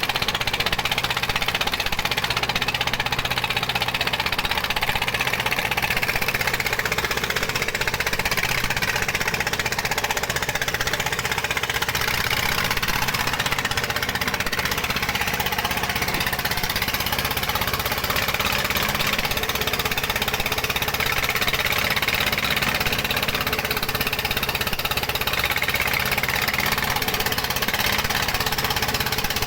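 Dong Feng single-cylinder diesel engine (a 'dompeng' mining engine) running steadily at constant speed.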